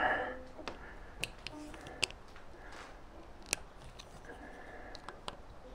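A small screwdriver clicking and scraping against the thin metal tangs of a Prius electric power-steering column as they are pried outward: a few faint, sharp metallic ticks spread apart, the loudest about three and a half seconds in.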